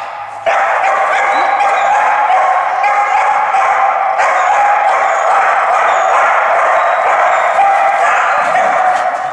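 Dog barking and yipping excitedly and without pause, high-pitched, starting about half a second in.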